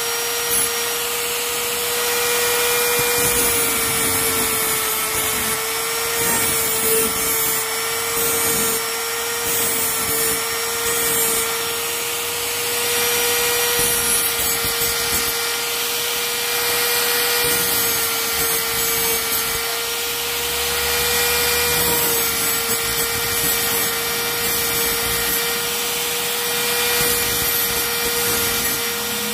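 Die grinder with a small abrasive disc running with a steady whine while grinding metal, re-cutting the worn spline teeth on a motorcycle engine's sprocket shaft.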